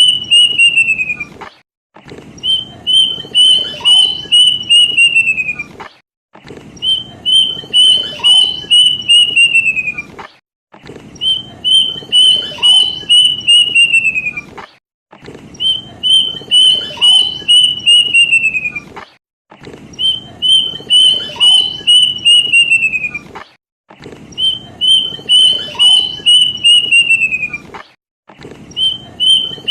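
Plaintive cuckoo (kedasih) song played as a looped lure: a whistled series of about eight clear notes that holds its pitch and then slides downward at the end, repeated about every four seconds with short silent gaps, around seven times.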